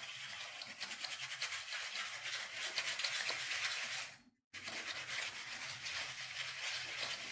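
Brush bristles scrubbing dust off a laptop's cooling fan blades in quick, repeated scratchy strokes, with a brief break about four seconds in.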